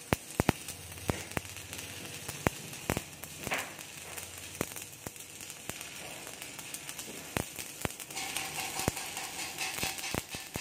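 Stick (shielded metal arc) welding arc from an E6013 electrode, crackling steadily with irregular sharp pops, turning hissier about eight seconds in. The bead is laid over a rusty, dirty flat bar, which the instructor says leaves porosity.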